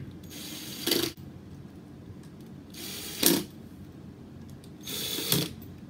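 Cordless impact driver run in three short bursts about two seconds apart, driving screws back in as a speaker cabinet is reassembled.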